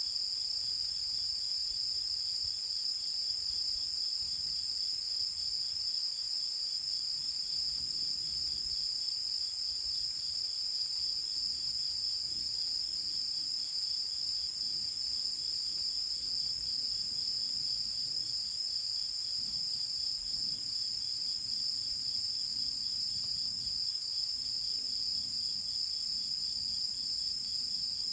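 Chorus of night insects chirring steadily: one continuous high-pitched trill with a second, even higher layer above it, and no breaks.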